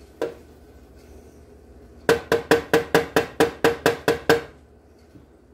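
A wooden spoon knocks once on a stainless steel saucepan, then taps about a dozen times in quick succession on its rim, about five taps a second, each with a brief metallic ring from the pan: sauce being knocked off the spoon.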